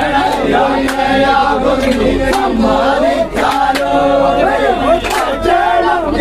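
A group of men singing a Vanchipattu boat song together in chorus, with sharp beats keeping time about once a second.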